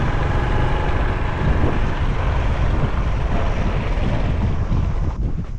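Motorbike engine running while riding over a dirt track, mixed with heavy wind rumble on the microphone. The noise dies down shortly before the end.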